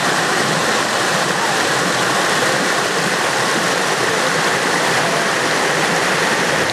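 Shallow, fast-flowing river rushing and splashing over a rocky bed as a steady, unbroken rush of white water.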